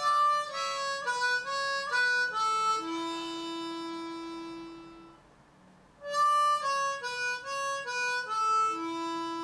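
Diatonic harmonica in A playing single notes: a quick run stepping down, ending on a long held low 3 blow. The phrase is played twice, with the held note at about three seconds in and again near the end.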